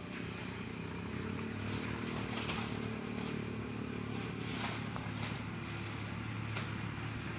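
A steady low engine hum, like a motor running at idle, with a few faint clicks or knocks.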